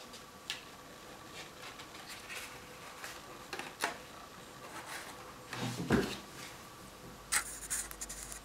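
Handling noise from a folded paper flower on a plastic drinking straw: soft paper rustles and light clicks against a plastic clipboard, with a dull thump about six seconds in as the loudest sound.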